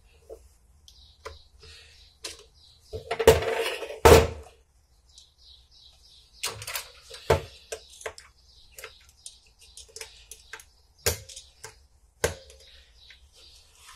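Hands reassembling a motorcycle brake master cylinder on a metal workbench: irregular clicks and knocks of small parts being handled and fitted. About three seconds in there is a louder scraping knock lasting a second or so, and there are a few more sharp knocks later on.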